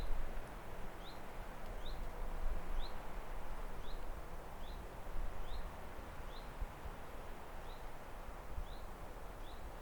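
A bird repeating a short, rising chirp at an even pace, roughly once a second, over a steady hiss of outdoor ambience with some low rumble.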